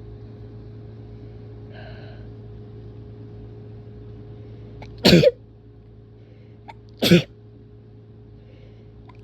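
A person sneezing hard twice, about two seconds apart, each sneeze a short, loud burst.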